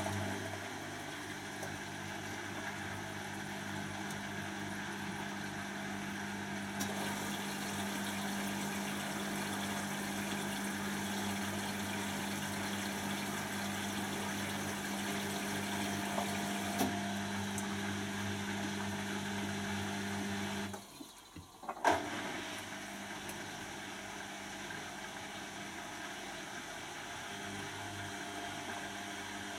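Beko WTB741R2A washing machine draining, its drain pump giving a steady low hum as the drum turns the wet load. About two-thirds through, the hum cuts out for a moment and a sharp click follows. The machine then runs on more quietly, and near the end it goes into its intermediate spin.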